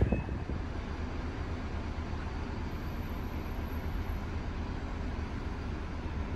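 Steady low background rumble with a light hiss and no distinct events.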